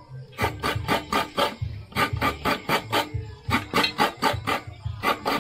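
A long knife blade scraping a coconut in quick, dry rasping strokes, about five a second, in runs with short pauses between them.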